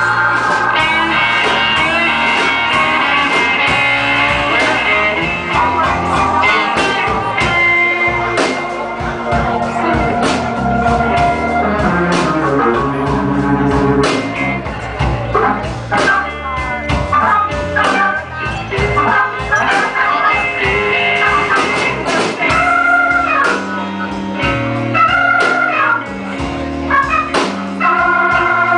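Live blues band playing an instrumental passage: guitar lines over drum kit and bass, with no singing.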